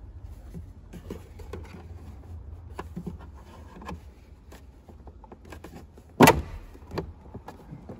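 Hard plastic dashboard trim being handled as the BMW F10's glove box is lowered out of the dash: scattered light clicks and rattles, with one sharp, loud knock about six seconds in, over a steady low hum.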